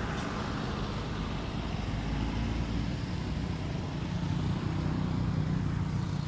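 A motor engine running steadily with a low hum, growing a little louder in the second half.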